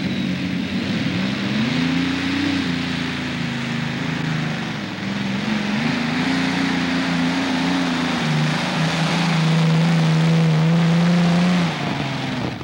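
Multi-engine modified pulling tractor running at full power under load, its engine pitch rising and falling twice, then holding steady at its loudest before dropping off sharply near the end.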